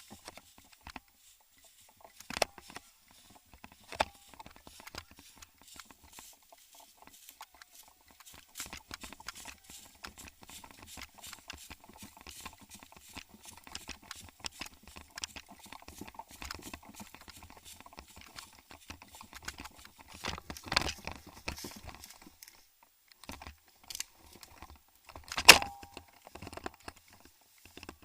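Rustling and scattered clicks, with a few louder sharp snaps, the loudest near the end.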